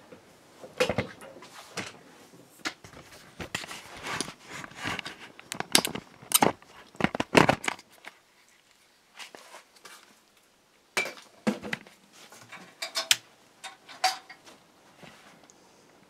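Handling noise: a string of irregular clicks, knocks and rustles with light clinks. It is busiest over the first eight seconds, then goes quieter, and there are a few more clicks near the end.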